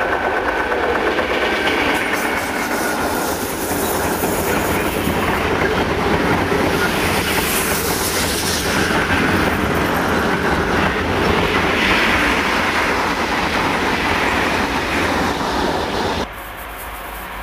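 Class 92 electric locomotive hauling a long freight train of covered wagons past at speed: a steady, loud rumble and rattle of wagon wheels on the rails. It cuts off suddenly near the end.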